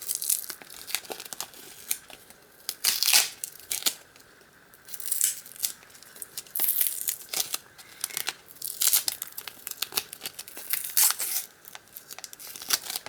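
Packaging wrapping being torn and crumpled open by hand, crinkling and ripping in irregular bursts.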